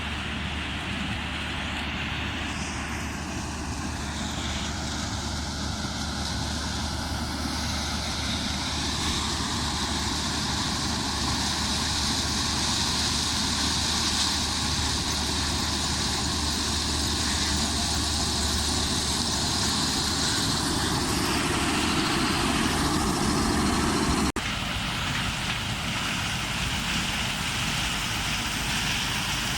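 Combine harvester running steadily during the corn harvest, a low engine drone under a broad hiss from the threshing and cutting machinery. The sound changes abruptly about three-quarters of the way through, and similar machine noise carries on.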